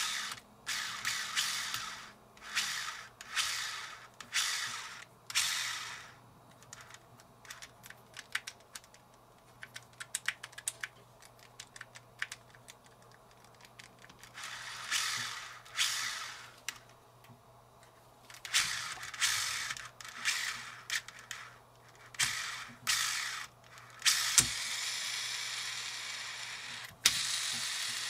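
Daiwa Steez SV TWS baitcasting reel with full zirconia ceramic ABEC 9 ball bearings, its handle cranked in short turns so the gears and bearings whir, with a run of small clicks in the middle. Near the end the spool spins freely with a steady whir that slowly fades, stops with a click, and starts again. This is the smooth, quiet running of a freshly serviced reel.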